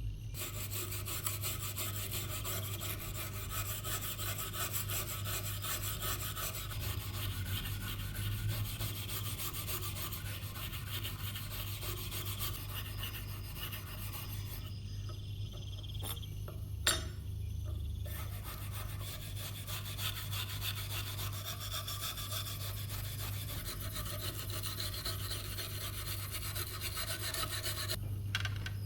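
Abrasive scraping on a rusted knife's metal, rapid steady strokes during rust removal, with a short pause and one sharp click about 17 seconds in. A low steady hum runs underneath.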